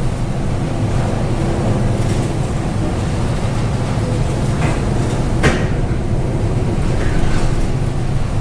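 Steady low rumble aboard a ship in a storm, with a sharp bang about halfway through and a couple of lighter knocks around it.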